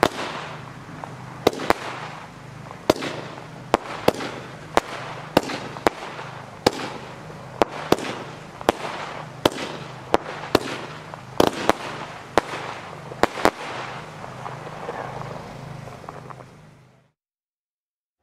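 Weco XXL Red Star Crossette fireworks battery firing: a steady run of sharp bangs, about one or two a second, with crackle between them. The bangs stop about fourteen seconds in, and the noise fades out to silence shortly before the end.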